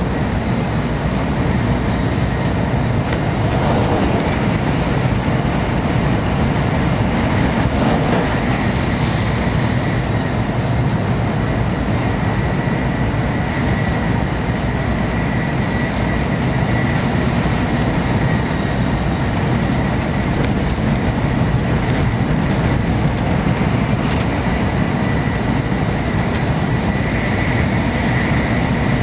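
Shinkansen bullet train heard from inside the passenger cabin while running at speed: a steady low rumble of wheels and track with a faint, steady high tone over it.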